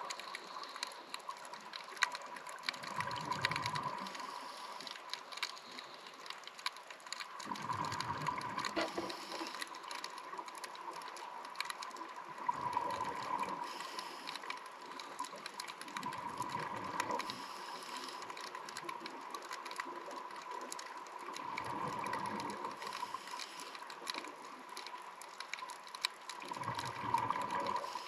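A scuba diver breathing through a regulator underwater: the exhaled bubbles rumble out about every four to five seconds, six breaths in all. Steady faint crackling and clicking runs between them.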